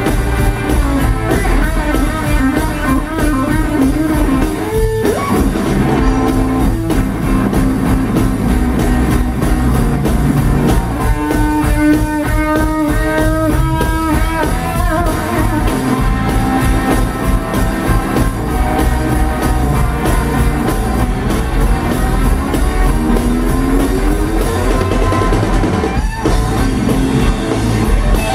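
Live electric blues band playing an instrumental: electric guitar lead over electric bass and drum kit. The guitar holds a long note about halfway through and slides upward near the end.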